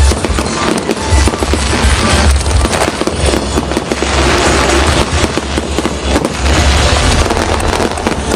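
Fireworks going off in a dense, unbroken barrage of bangs and crackles over a deep rumble.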